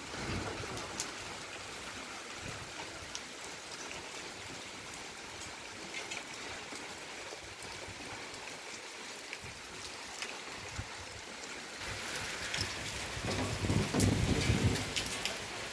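Rain falling steadily: an even hiss with scattered drop ticks, growing louder and fuller near the end.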